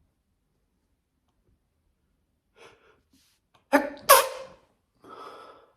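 A person sneezing: a few faint catching breaths, then a loud sneeze in two quick bursts about four seconds in, followed by a softer breathy sound.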